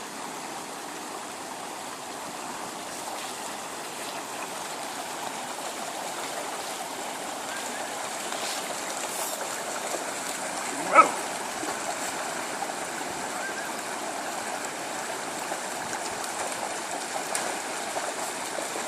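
Forest stream running steadily, with one short, sharp, louder sound about eleven seconds in.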